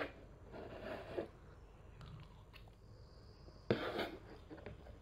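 Close-up mukbang eating sounds: a child chewing a mouthful of omelette and rice, with a sharp click about three and a half seconds in.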